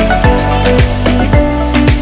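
Background music with a steady beat: a deep drum hits about twice a second under melodic notes and light percussion.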